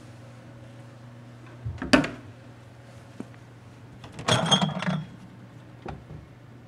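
A single sharp knock about two seconds in. Then, past the middle, a minibar fridge door is pulled open with a short clatter of glass bottles clinking against each other. A steady low hum runs underneath.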